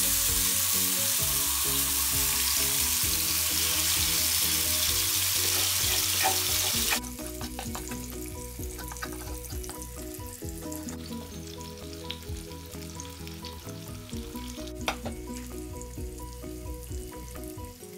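Marinated sea bream frying in hot oil in a flat pan: a loud, even sizzle that drops suddenly to a softer sizzle about seven seconds in, with small spits and crackles after.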